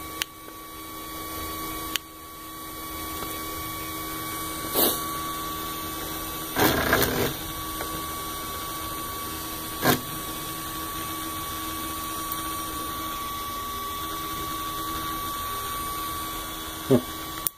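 Steady electrical hum with a constant high whine from a powered-up Geeetech Prusa i3 Pro B 3D printer standing idle, broken by a few short knocks and a brief rustle of handling.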